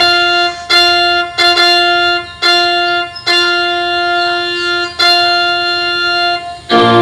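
Music played through a homemade full-range speaker box under test: a single bright instrument note struck again and again at the same pitch, about seven times, with fuller keyboard-like chords coming in near the end.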